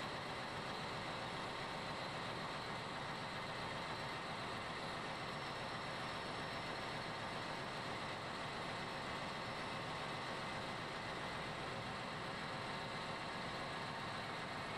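Steady, even machinery noise of an engine room, with no distinct knocks or clanks standing out.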